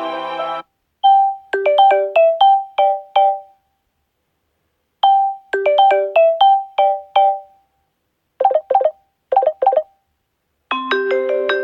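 Samsung Galaxy S6 edge+ ringtone playing: a short, bright melody of quick pitched notes, heard twice, followed by two quick groups of short clipped notes. A held chord from one tone stops just under a second in, and the next tone starts with a sustained chord near the end.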